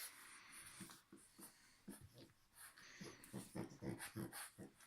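A sleeping French bulldog puppy's faint snoring: short wheezy, snuffling breaths, growing a little louder in the second half.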